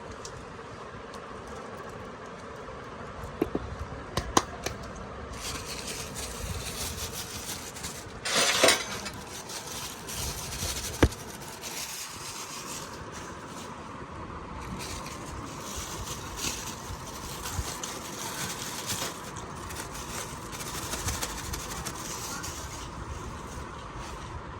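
Kitchen cooking sounds: a steady hum with a hiss that comes and goes from about five seconds in, a few sharp metal clinks of utensils, and one short loud rush of noise about eight seconds in.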